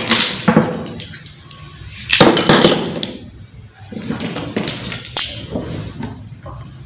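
Small hard objects (shells, wooden sticks and plastic construction pieces) clicking and clattering against each other as they are handled and set down together on a table, in several short bursts.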